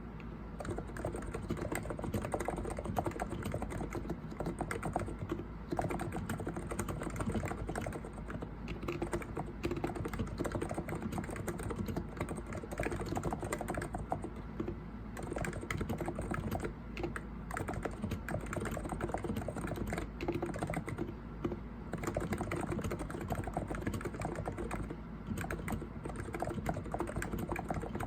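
COX Endeavor electro-capacitive keyboard with 50 g switches being typed on continuously: a dense, steady stream of keystrokes.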